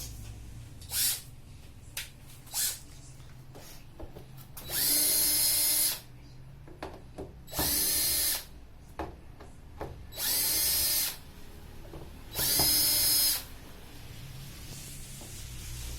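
Electric screwdriver running in four short bursts of about a second each, backing out the screws of a plasma TV's rear cover, with a few light clicks and knocks of handling between them.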